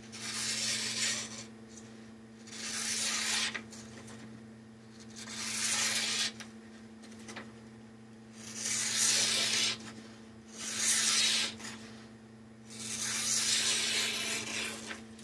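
A hand-sharpened SOG Flash II knife slicing through paper in six strokes, each about a second long with short gaps between, as a sharpness test of the edge. A steady low hum runs underneath.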